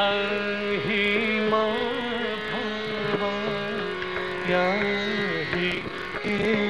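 Indian classical music accompanying an Odissi dance: steady held drone tones under a melodic line that bends and slides in pitch, with a sharp percussive stroke right at the start.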